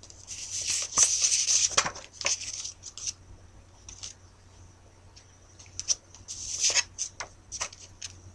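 Paper cue cards being handled and rustled in bursts, loudest about a second in and again near seven seconds, with a few sharp clicks. A steady faint high-pitched whine runs beneath.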